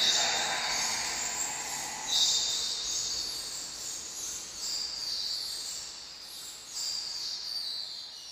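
A swarm of rats squeaking, many high-pitched squeals overlapping. Fresh surges come at the start, about two seconds in and near seven seconds, and the squeaking thins out and fades toward the end.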